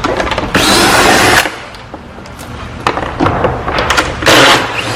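Cordless power driver spinning in two short bursts, about half a second in and again past four seconds, with light clicks of handling between.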